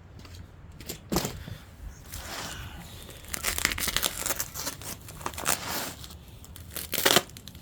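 Packaging being torn open and crinkled by hand: a series of rough tearing and rustling sounds, with a sharp rip near the end.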